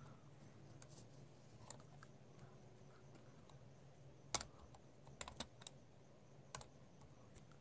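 Faint, scattered light clicks and taps of small parts being handled, with a cluster about four to six seconds in, over near silence.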